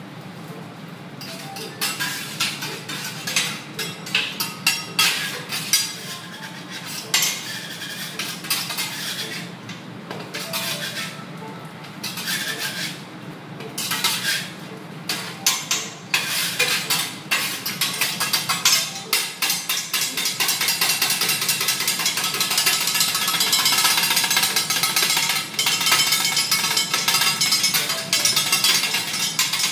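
Metal spatulas clacking and scraping on a steel teppanyaki griddle while an egg omelette is cut and mixed into fried rice: scattered clacks at first, then rapid chopping strokes over the last third. A steady low hum runs underneath.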